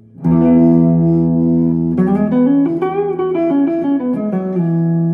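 Electric Telecaster guitar played clean through an amplifier: a chord struck and left ringing, then a run of changing notes with a wavering pitch about three seconds in, settling into another ringing chord near the end.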